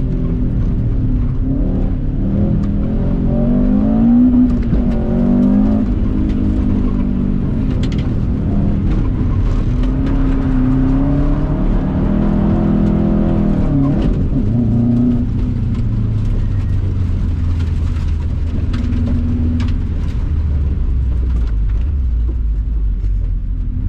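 2003 Subaru Impreza WRX STI's turbocharged flat-four boxer engine heard from inside the cabin, revving up and down as the car is driven through corners. About fifteen seconds in it settles to a lower, steadier drone.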